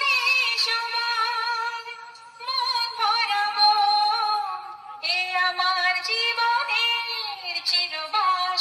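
Solo vocal track of a devotional song, a high singing voice with no beat under it, in three long, ornamented phrases with short breaks between them.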